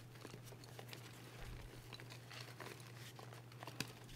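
Soft reformed gym chalk crumbling and breaking apart in the hands: faint, scattered crackles and small crunches of powdery chalk. A low steady hum runs underneath.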